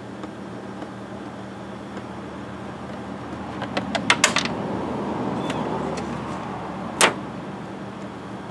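Plastic clicks and snaps as the black plastic cover on a Predator 670 V-twin engine is worked loose by hand: a quick run of sharp clicks about four seconds in and one louder snap about seven seconds in, over a steady low hum.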